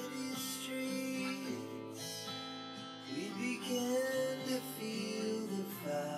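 Background music led by acoustic guitar, steady chords and melody notes.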